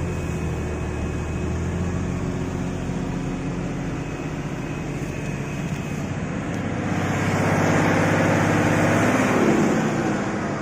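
IVECO 420 truck's diesel engine pulling under load on desert sand, with the throttle held down. It grows louder about seven seconds in, and its pitch drops near the end.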